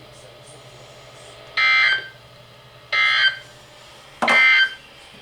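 Emergency Alert System data bursts: three short, harsh electronic bursts about a second apart. Their count and shortness match the SAME end-of-message code that closes an alert.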